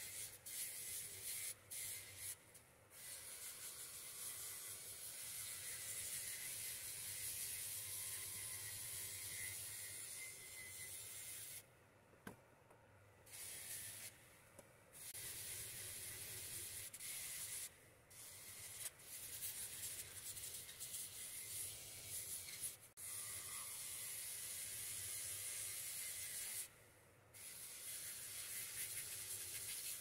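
Metal multiple tool pressed against a spinning polishing wheel on a bench grinder: a steady high hiss of metal rubbing on the wheel, with a low motor hum underneath. The hiss breaks off briefly a few times.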